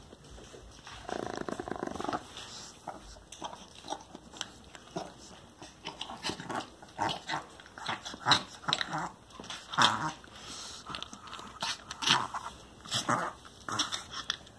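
Chihuahuas eating dry kibble from a steel bowl: a short low dog growl about a second in, then irregular crunching and clinks of food against the metal bowl.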